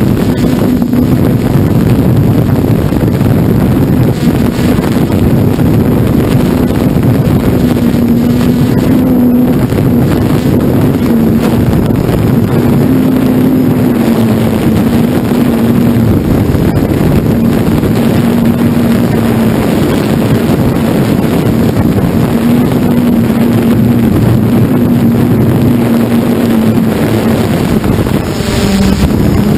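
Electric motor and propeller of an FPV model aircraft heard through its onboard camera: a steady drone whose pitch wavers slightly with throttle, under heavy wind rush on the microphone. Near the end the level and pitch dip briefly.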